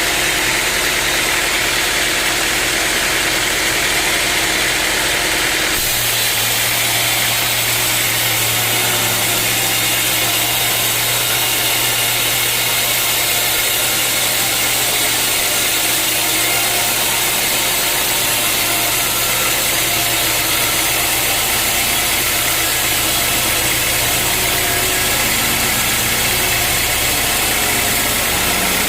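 A sawmill's engine running steadily, its low hum shifting to a new steady pitch about six seconds in.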